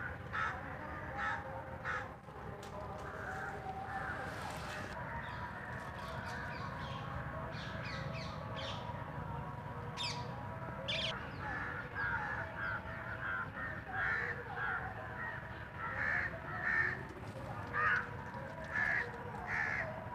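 Crows cawing over and over, the calls coming more often and louder in the second half. A couple of brief sharp rustles about ten seconds in.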